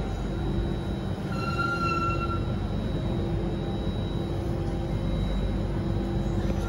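Steady rumble and running noise of an Alstom Metropolis C830 metro train heard from inside the car, with a brief high squeal about a second and a half in.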